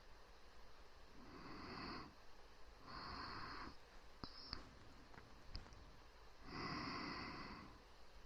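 Close-miked human breathing for ASMR: three slow, quiet breaths, the first about a second in, the next near 3 s and the last near 6.5 s. A few small clicks come between the second and third breath.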